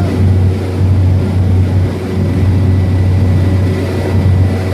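Single-engine propeller plane's engine and propeller running steadily, heard from inside the cabin: a loud, constant low drone with a few steady higher tones over it.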